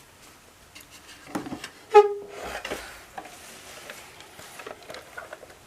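Handling of a wooden cuckoo clock case: light clicks, knocks and rubbing, with one short pitched toot about two seconds in.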